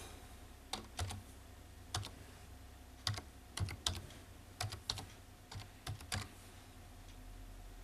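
Computer keyboard being typed, about fourteen separate keystrokes at a slow, uneven pace, stopping about six seconds in.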